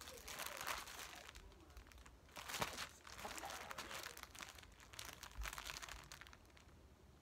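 Plastic packaging of a pack of braiding hair crinkling and rustling in irregular bursts as it is handled and turned over, dying away near the end.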